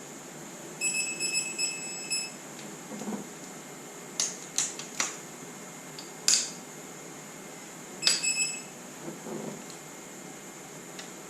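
A digital torque wrench adapter beeps steadily for about a second and a half as a cylinder head bolt is tightened to torque. Sharp metallic clicks of the ratchet and socket follow, then another short beep about eight seconds in.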